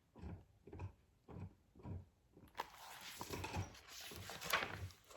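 Faint soft puffs about twice a second, then from about halfway a rustle of paper as a picture-book page is turned.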